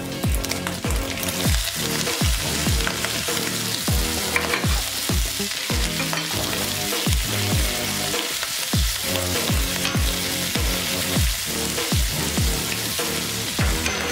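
Bacon and garlic sizzling steadily in an oiled frying pan as fresh spinach is added, over background music with a steady low beat.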